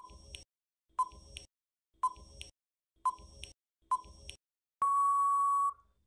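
Quiz countdown timer sound effect: five short ticking beeps, one a second, then a louder long steady beep of about a second signalling that time is up.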